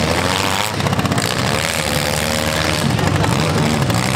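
Engines of several small stock compact demolition derby cars running and revving at once, their overlapping engine notes rising and falling.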